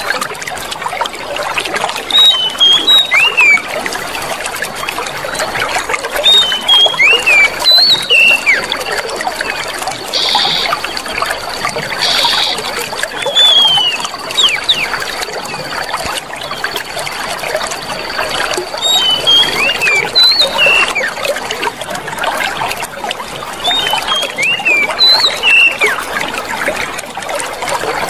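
Clear running water trickling and splashing steadily. Short high bird chirps come in small clusters every few seconds, over a thin steady high tone that runs through much of it.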